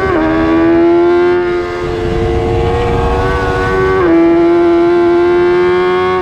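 2022 BMW S1000RR's inline-four engine under hard acceleration, the revs climbing steadily through each gear. It upshifts right at the start and again about four seconds in, with a rush of wind noise underneath.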